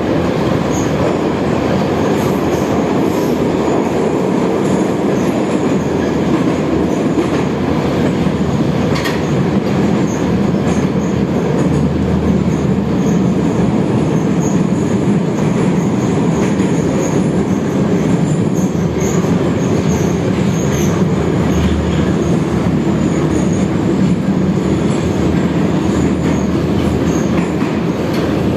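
Minsk metro train running through the tunnel between stations, heard from inside the car: a steady, loud rumble of wheels and running gear, with a faint high wheel squeal and the odd click.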